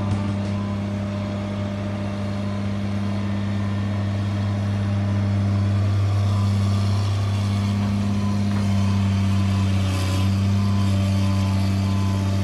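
Kobelco hydraulic excavator's diesel engine running steadily with a low drone while the boom and bucket dig, growing slightly louder after a few seconds.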